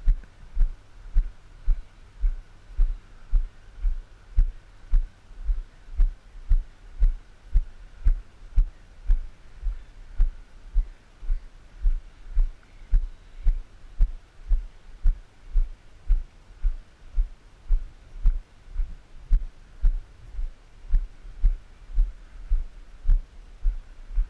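Footsteps walking along a gravel path, heard as low, even thumps about two a second, carried through the body into a worn action camera rather than as crunching underfoot.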